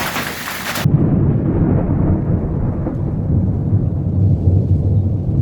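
Dense hiss of hail and rain for under a second, then an abrupt switch to a loud, steady low storm rumble of wind and thunder.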